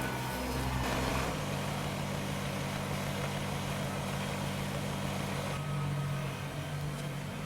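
Kubota BX compact tractor's small diesel engine running steadily, its note changing about a second in and then holding.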